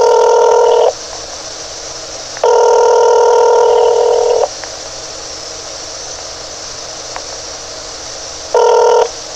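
Telephone ringback tone through a phone's speaker: the call rings through after the automated menu, three rings with steady line hiss between them, the last one cut short.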